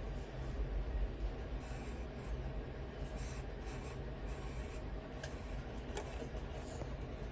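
Scratching and rustling in short bursts over a low steady rumble.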